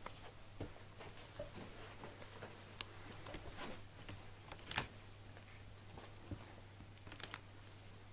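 Six-week-old tabby kittens shifting about in a plastic laundry basket: faint scattered clicks and scuffs of paws and claws on the plastic, one sharper click a little under five seconds in, over a low steady hum.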